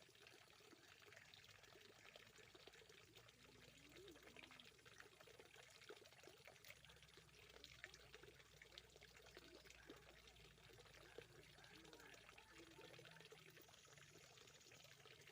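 Near silence with a faint, steady trickle of running water.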